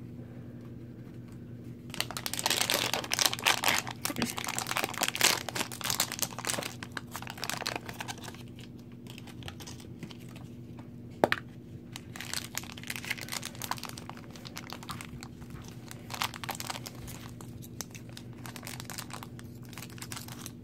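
Plastic and foil toy packaging being crinkled and torn open by hand, dense for several seconds early on, then scattered crinkles with one sharp click a little past the middle. A steady low hum runs underneath.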